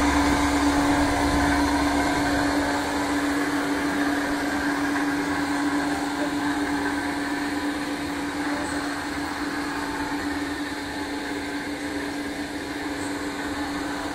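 Ribbon mixer's electric motor and drive running: a steady mechanical hum with one strong constant tone, slowly easing a little in loudness.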